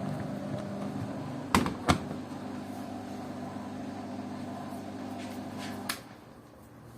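Washing machine running with a steady motor hum, interrupted by two sharp knocks close together about a second and a half in; the hum stops after a click about six seconds in.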